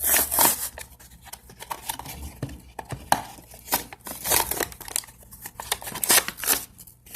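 Toy box packaging being opened by hand: irregular crinkling, tearing and scraping of cardboard and plastic, in a string of sharp strokes.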